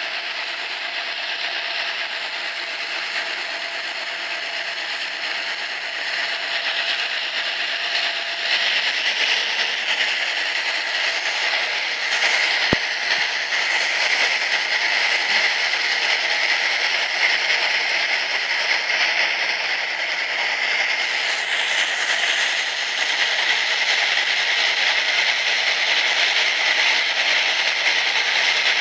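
Train running through a rail tunnel, heard from on board: steady wheel-and-rail noise that grows a little louder about eight seconds in, with a single sharp click about halfway through.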